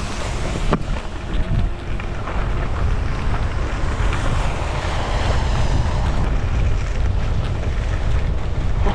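Wind rushing over the microphone of a camera carried at speed on a fast ski run, a steady low buffeting, with the skis running over packed, groomed snow beneath it.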